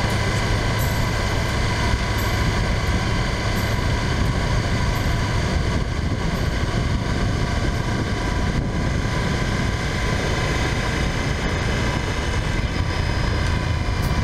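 Honda Varadero XL1000V motorcycle's V-twin engine running steadily while riding, under a constant rush of road and wind noise.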